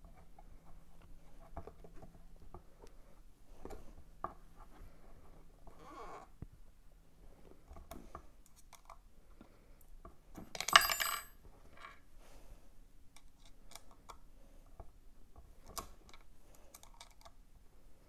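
Faint clicks and scrapes of a hex key working small screws into a metal wheel hub, with one brief, louder metallic clatter of small metal parts a little past halfway.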